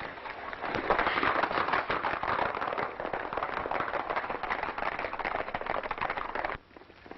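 Hoofbeats of several horses galloping, a dense clatter that cuts off suddenly near the end.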